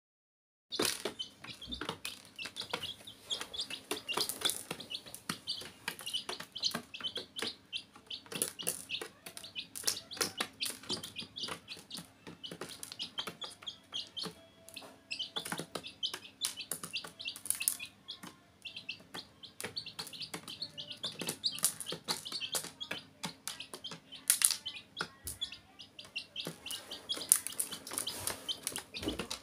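Baby chicks peeping: a continuous stream of short, high chirps, with a few soft knocks among them.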